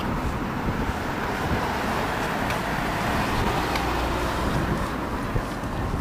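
Steady road-traffic noise, an even wash with a low rumble underneath and no distinct passing vehicle.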